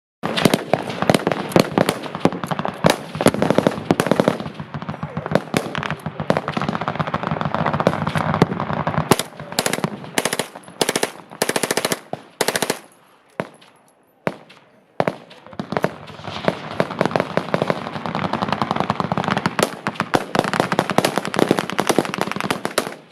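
Sustained, dense automatic machine-gun fire, the shots overlapping as if from several guns. About nine seconds in it breaks into separate short bursts and almost stops for a couple of seconds, then heavy continuous fire resumes.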